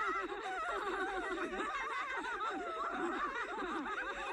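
Several women laughing together, their high, wavering voices overlapping throughout.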